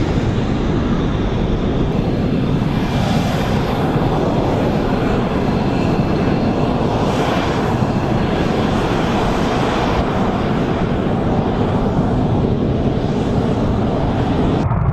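Fighter jet engine noise, loud and steady, with slow sweeping changes in the hiss as the aircraft moves. Right at the end the sound changes abruptly to a duller one.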